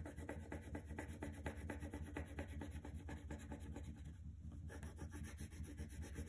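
Crayon scribbling on paper in quick, even back-and-forth strokes as an area is coloured in, with a short break about four seconds in.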